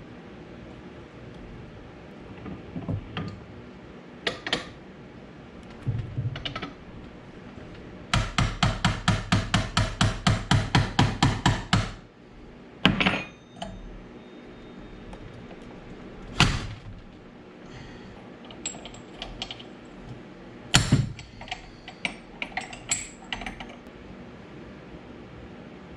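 Workshop sounds of hand tools and metal parts: scattered clinks and knocks, and in the middle a run of quick, even strokes, about four a second, lasting about four seconds.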